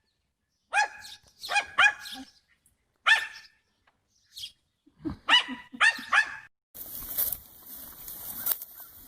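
A small dog yapping: short, high-pitched barks, some single and some in quick runs of two to four, stopping about two-thirds of the way through. After that comes a steady hiss with a faint knock or two.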